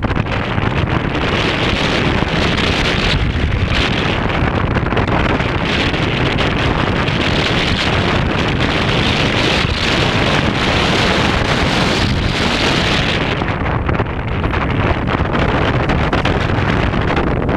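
Steady, loud rush of airflow buffeting the microphone of a GoPro Hero 3 Black mounted on a Bixler RC airplane in flight. The hiss turns brighter about a second in and dips briefly near the end.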